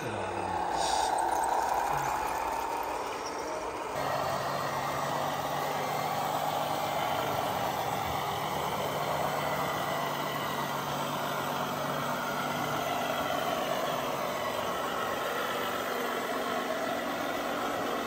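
Radio-controlled scale construction models running, with a wavering electric whine and engine sound. About four seconds in, an abrupt change to a model truck's engine sound humming steadily at idle.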